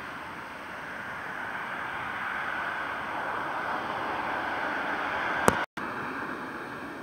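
An approaching inland tanker ship making a steady rushing noise that slowly grows louder. About five and a half seconds in there is a sharp click and the sound cuts out for a moment.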